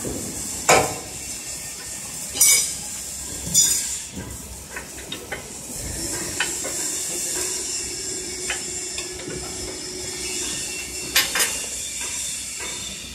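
Metal clanks and knocks as steel machine parts are handled and fitted, four loud ones spread unevenly with lighter ticks between, over a steady workshop hiss. A faint steady hum is heard through the middle.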